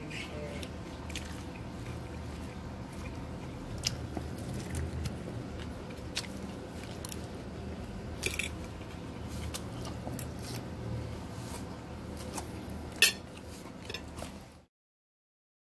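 Eating salad up close: chewing and a few sharp clicks of a fork against the bowl, the loudest near the end, over a steady low hum. The sound cuts off abruptly near the end.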